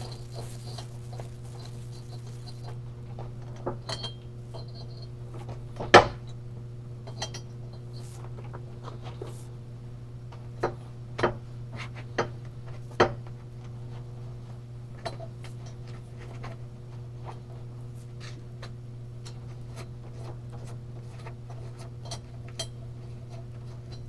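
Scattered metallic clicks and clinks of hand tools working a nut welded onto a broken exhaust stud in a 5.3 aluminium cylinder head, the sharpest about six seconds in and a few more clustered around the middle, over a steady low hum.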